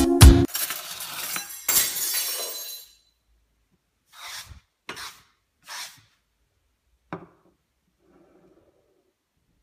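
Background music cuts off about half a second in, and its last crash rings away over a second or so. A ceramic espresso cup is then slid across a wooden tabletop in three short scrapes, followed by a light click as it comes to rest.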